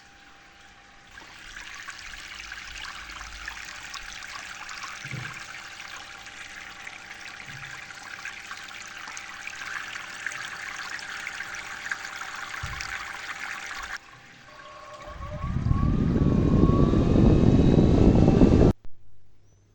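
Water trickling and splashing, followed by a loud low rumble that builds over a couple of seconds and cuts off suddenly near the end.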